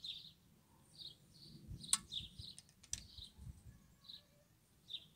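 A small bird chirping, short high notes about every half second. Two sharp clicks stand out about two and three seconds in.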